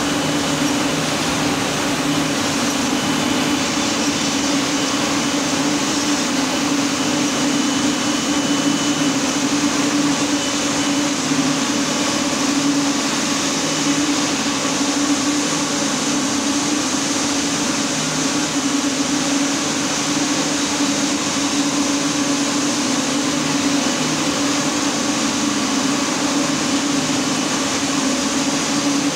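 Rows of ring spinning frames running in a spinning mill, thousands of spindles making a loud, steady whir with a low hum underneath.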